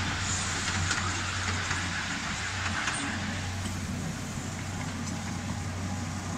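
Miniature railway train running along the track: a steady low hum and rumble from the moving train, with a few short sharp clicks.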